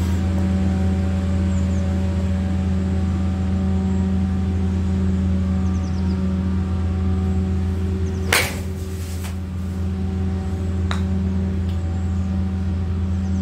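Steady low hum throughout. About eight seconds in comes one sharp crack with a short ring, a golf club striking a ball off a practice mat. A fainter click follows about two and a half seconds later.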